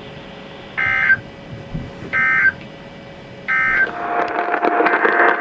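EAS End of Message data tones from a NOAA Weather Radio broadcast: three short bursts of buzzy digital warbling about a second apart, closing the alert. Near the end a steady hiss with a constant tone begins.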